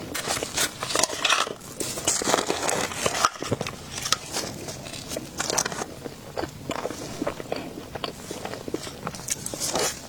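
A person biting and chewing food close to the microphone, with many short, irregular clicks and crackles of mouth and food.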